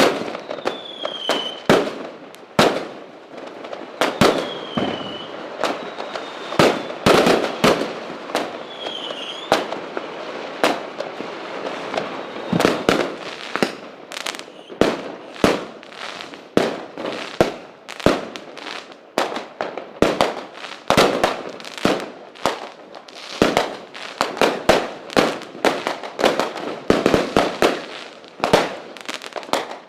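Fireworks and firecrackers going off in a rapid, irregular string of sharp bangs, getting denser in the second half. There are a few short falling whistles in the first ten seconds.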